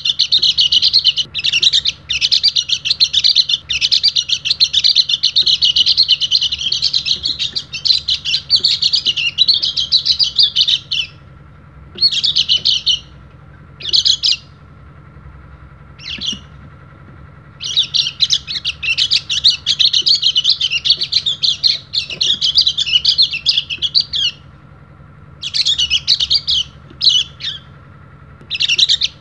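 White-eye (pleci) singing: long runs of rapid, high twittering chirps, broken by a few pauses and short bursts in the middle and near the end.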